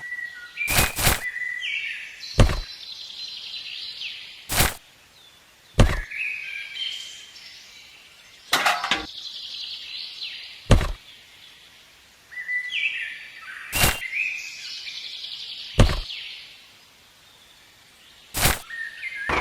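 Birds chirping in short sweeping calls, with about ten sharp knocks or taps at uneven intervals of a second or two.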